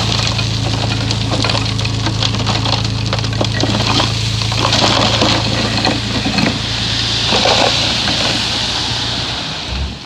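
Komatsu bulldozer's diesel engine running steadily under dense crackling and clanking from the tracks and the soil being pushed. The engine hum drops away just before the end.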